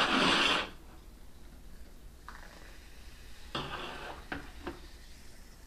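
Carbonated water poured from a can into a small glass: a loud fizzing pour that stops within the first second, then a quieter second pour a few seconds later with light clinks of can and glass.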